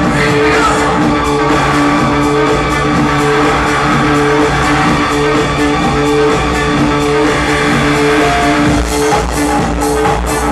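Techno music: held synth tones over a steady ticking beat, with a heavy bass kick coming in near the end.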